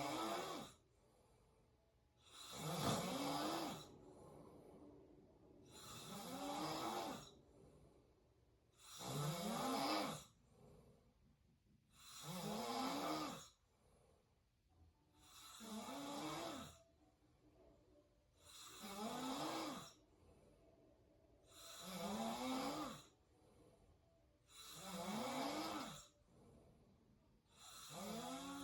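A sleeping person mouth snoring in a steady rhythm, one snore about every three seconds, each a rasp whose pitch rises and falls, with quiet breathing between.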